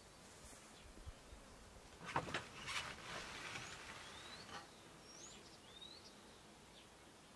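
Faint outdoor ambience with small birds chirping: a handful of short, high calls, some rising and some falling. A few soft knocks or rustles come a little after two seconds in.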